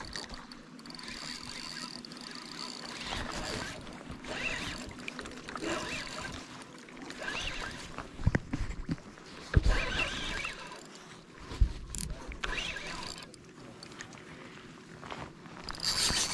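Spinning reel and line being worked while fighting a hooked fish from the shore, with scattered handling rustles and a few sharp knocks around the middle.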